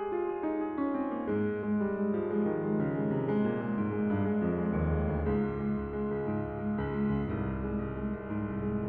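Piano music: a falling line of notes, then from about a second in a low note repeated about three times a second under held chords.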